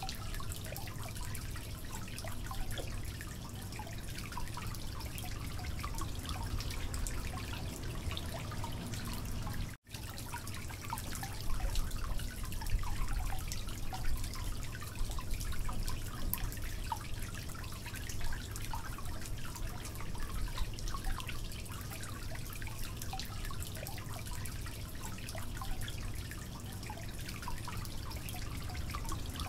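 Metal spoon stirring wet yogurt-and-spice marinade and raw mutton pieces in a glass bowl: a steady run of small squelches, wet clicks and scrapes, over a low hum.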